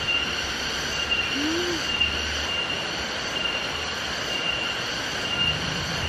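Steady, high-pitched drone of forest insects, with a brighter tone pulsing roughly once a second.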